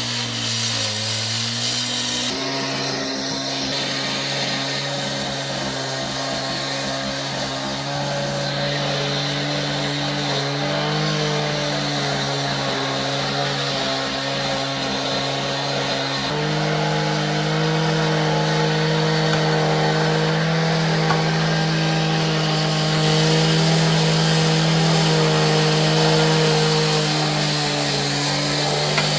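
Gas-powered concrete saw running steadily, its engine pitch shifting a few times as it works.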